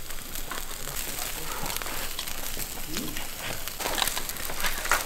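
Lamb pieces sizzling on a wire grill over charcoal, with scattered crackles and pops from the grill and coals.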